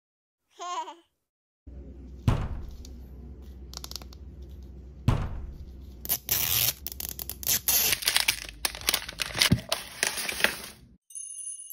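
A brief warbling tone, then a plastic capsule ball's printed wrapper being torn open along its perforated strip, crinkling and crackling densely through the second half. Several sharp clicks are heard as the plastic ball is handled and pulled apart.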